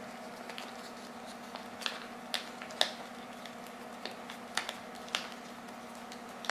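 Roll film and its paper backing being wound by hand from a 120 spool onto a 620 spool: faint, irregular clicks and small rustles from fingers and spools, over a steady low hum.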